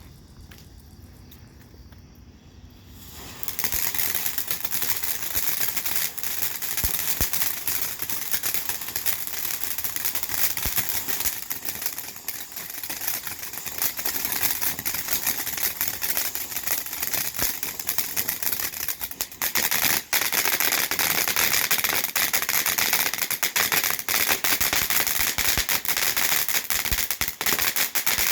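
Consumer fountain firework (Pyro Predator's Jigsaw) spraying with a dense, continuous crackle of countless small pops. It starts about three seconds in, after a few quieter seconds, and grows louder again about two-thirds of the way through.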